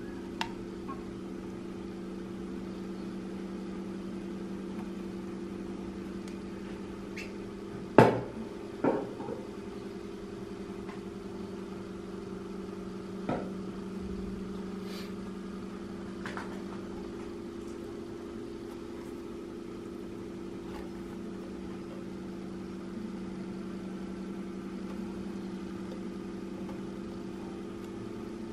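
A steady low hum, with a few sharp knocks of a stainless steel racing muffler being handled and set down on a table. The loudest knock comes about eight seconds in, a second follows just after it, and lighter ones come near the start and around a third of the way through.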